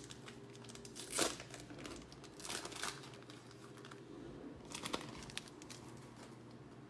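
Foil trading-card pack wrapper crinkling and rustling in a few short bursts as it is handled and torn open.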